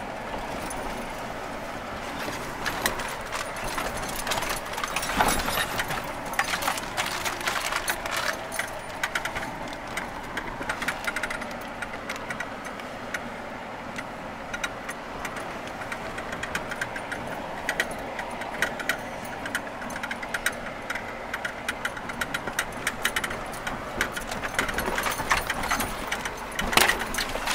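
Off-road vehicle's engine running at low speed, heard from inside the cab, as it crawls over a gravel and rock trail, with frequent clicks and knocks from the stones and rattles.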